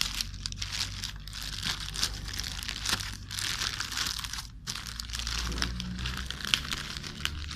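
Packaging bag crinkling continuously as it is handled and torn open by hand.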